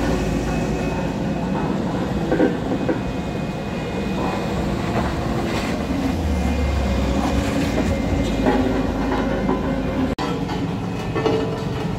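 Heavy diesel truck engine running with a steady low rumble. The sound breaks off for a moment about ten seconds in.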